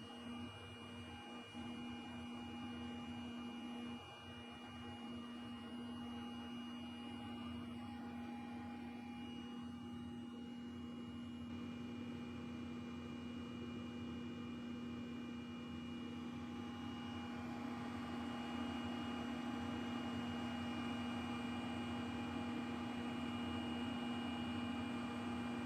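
BGA rework station running through its soldering cycle: a steady hum of its fans and heaters, a little louder about two-thirds of the way through.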